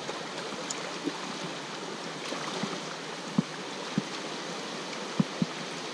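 Fast-flowing glacial river, the Weisse Lütschine, rushing steadily past right at the water's surface. A few dull low knocks come through in the second half.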